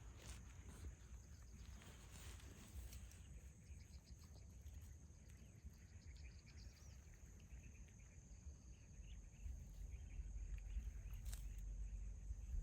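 Faint outdoor ambience: a low rumble, a steady high-pitched tone, and a few faint chirps in the middle, with the rumble growing louder near the end.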